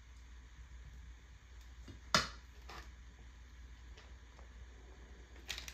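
Quiet kitchen handling: kitchen tongs working shredded chicken on a tortilla give one sharp click about two seconds in and a softer one just after, over a low steady hum.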